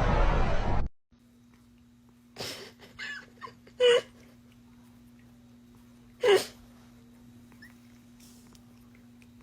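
A loud noisy sound cuts off about a second in. Then, over a steady low hum, come a few faint sounds and two short, loud calls from a pet, about two and a half seconds apart.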